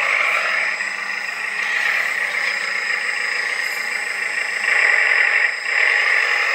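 Simulated diesel engine sound from a 1/14 scale RC dump truck's onboard sound module, running steadily while the truck drives under remote control, growing louder for a moment about five seconds in.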